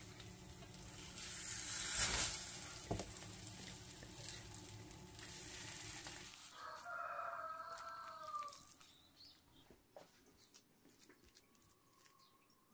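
Thick batter sizzling as it is turned over with a spatula in a nonstick frying pan, with a couple of spatula knocks on the pan over a steady hum that stops about six seconds in. A rooster then crows once in the background, about seven seconds in.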